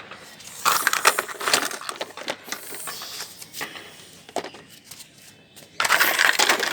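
Crunching, clattering crash noises of vehicles being wrecked. A dense run of rapid knocks comes about half a second in, scattered knocks follow, and a louder, denser crunching run starts near the end.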